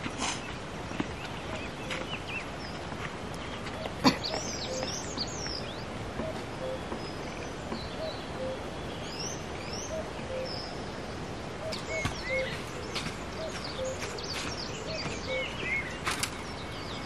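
Rural hillside ambience with birds chirping and twittering, and a short low call repeated steadily about once or twice a second. A single sharp knock about four seconds in.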